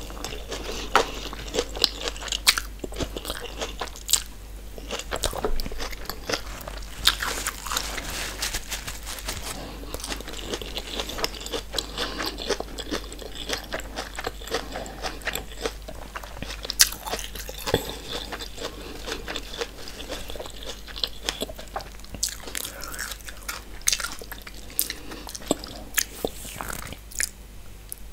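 Close-miked chewing of a mouthful of corn: a dense, irregular run of short mouth clicks and crunches.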